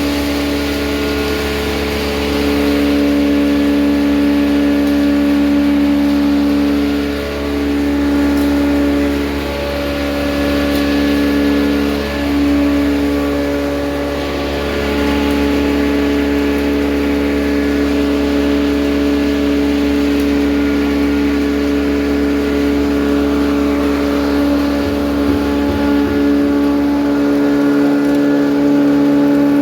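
Maize grinding mill running with a loud, steady hum of several pitches as it grinds maize into flour; its pitch sags briefly a few times.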